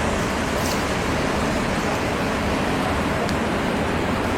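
Floodwater rushing past in a steady, even torrent.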